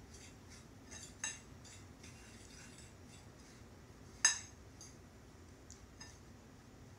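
Metal fork stirring a dry cracker-crumb and coconut mixture in a ceramic baking dish: soft repeated scratching with two sharper clinks of the fork on the dish, about a second in and about four seconds in.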